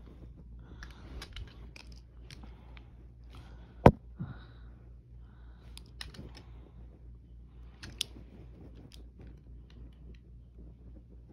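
Toy packaging being handled and opened by hand: scattered crackles, rustles and clicks of plastic and card. A sharp snap comes about four seconds in, and a smaller one near eight seconds.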